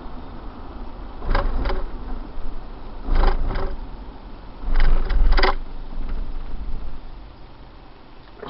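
Steady road and engine rumble inside a moving taxicab's cabin, broken three times by short loud bursts of two or three quick hits each, about a second and a half apart.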